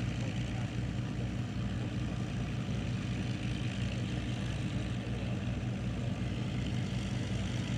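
Piston aircraft engines idling steadily at low power, with no change in pitch or level.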